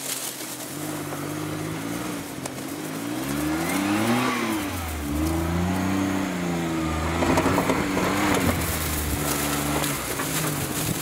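Lifted Suzuki Jimny's engine revving up and down as it crawls over a steep dirt slope, the revs rising to a peak about four seconds in, dropping, then climbing again. Around seven to eight seconds in there is a stretch of crackling from the tyres on loose dirt and rock.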